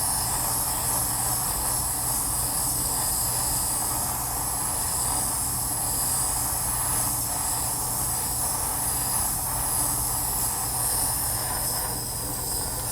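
Jeweller's soldering torch burning with a steady hiss, its flame heating a bezel joint to flow hard solder.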